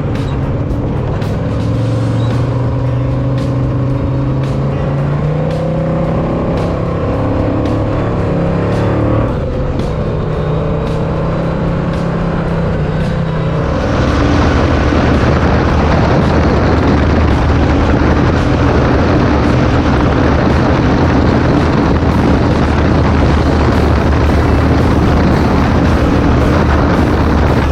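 Off-road race vehicles' engines running hard under background music, the engine pitch shifting as they rev. About halfway in the engine sound becomes louder and fuller.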